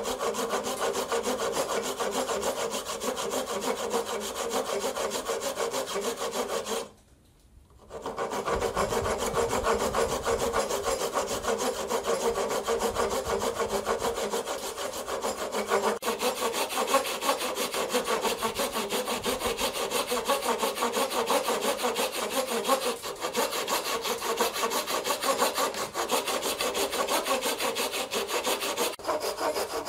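Handsaw cutting dovetail kerfs into the end of a wooden board, a continuous fast rasping of teeth through the wood. The sawing stops for about a second some seven seconds in, then carries on.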